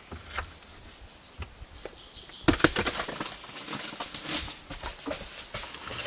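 A large stone being pried up and dragged over rocky, gravelly ground: a dense run of scraping, crunching and clattering that starts suddenly about two and a half seconds in, after a few light clicks.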